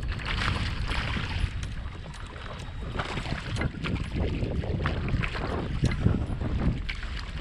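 Wind buffeting the microphone and water sloshing against a kayak's hull, with scattered short splashes and ticks.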